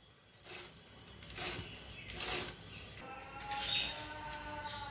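Red amaranth leaves rustling and snapping as they are picked off the stems by hand, in a few short crisp bursts. A faint drawn-out tone sits behind them in the second half.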